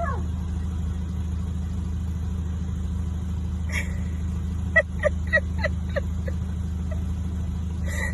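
Steady low rumble like a vehicle engine running. About halfway through comes a quick run of about six short, high-pitched squeaks, several a second.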